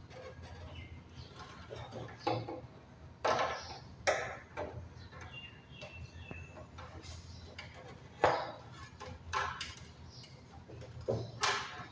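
Sharp clicks and knocks, about seven spread out, of hard plastic parts being handled and seated as the cross-flow blower wheel and its motor are fitted into a split AC indoor unit's housing.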